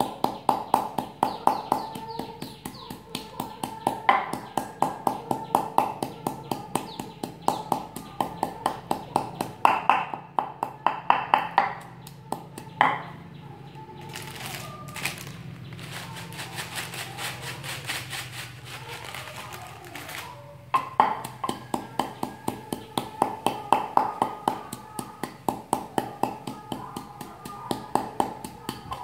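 Wooden pestle pounding in a wooden mortar, a steady run of knocks about three to four a second, grinding a chilli-salt dip. The pounding stops for several seconds in the middle, leaving softer rustling and handling noises, then starts again.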